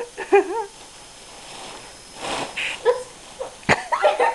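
High-pitched, squeaky, wavering voice sounds in short bursts: voices made squeaky by inhaled helium. There is a brief hiss about two seconds in and a sharp click near the end.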